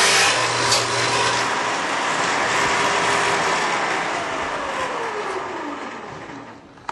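Shopsmith Mark V running as a table saw with a dado blade, then switched off: the motor and blade coast down with a steadily falling whine that fades out near the end.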